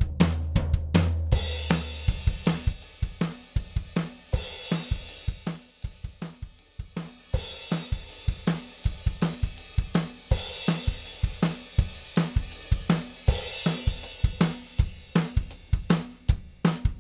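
Recorded drum kit playing a steady groove of kick, snare and hi-hat, with a cymbal crash about every three seconds, run through an Audient Black compressor as an audio example.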